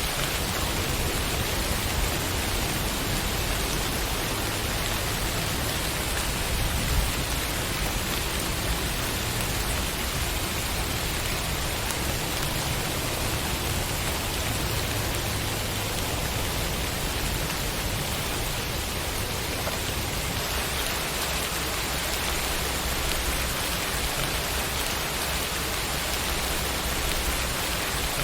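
Steady rainfall, a constant hiss of drops falling on a surface, with one slightly louder drop or tap about seven seconds in.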